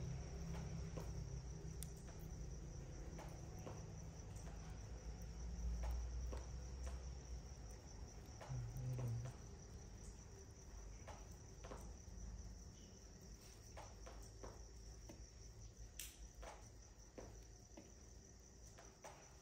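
Crickets chirping steadily in a single high unbroken trill, with a scattering of faint sharp clicks and some low rumble in the first half.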